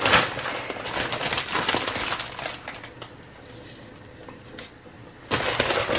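Dry fideo (thin vermicelli noodles) crackling as they are crumbled by hand into a pot of soup: a crisp crinkly crackle at the start, a quieter lull, then louder crackling again near the end.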